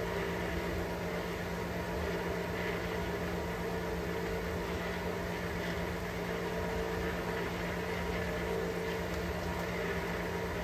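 A steady machine hum with several held tones over a low rumble, unchanging throughout.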